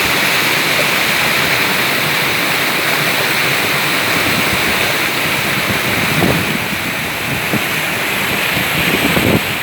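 Steady loud rushing of fast-flowing river water, with a few short low bumps in the second half.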